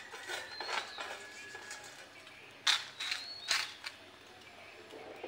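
Brief dry rustling scrapes as roasting vermicelli is moved about in a kadhai, a few separate strokes with two louder ones just past the middle. Short high chirps sound faintly in between.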